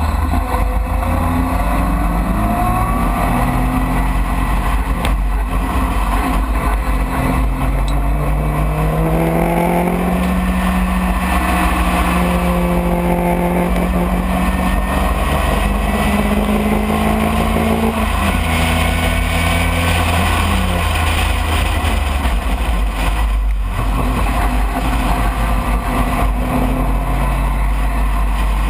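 Open-cockpit race car's engine heard from the driver's seat, its pitch climbing and dropping again and again as it accelerates, shifts and slows for corners, over a heavy steady low rumble of wind and road.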